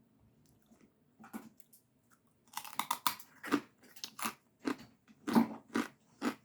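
Spicy chicharrones crunched and chewed with the mouth close to the microphone: a first crisp bite about a second in, a dense burst of crunching, then sharp crunches about two a second.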